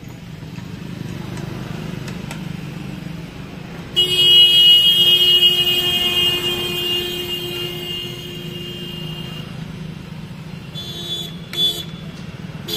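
Steady low hum of vehicle traffic, with a loud, long horn blast starting suddenly about four seconds in and fading away over several seconds. A couple of short toots follow near the end.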